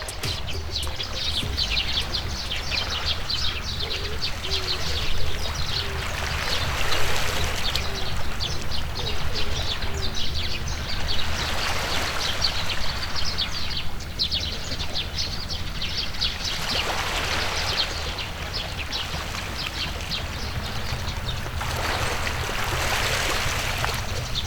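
Many small birds chirping over a steady rush of running water.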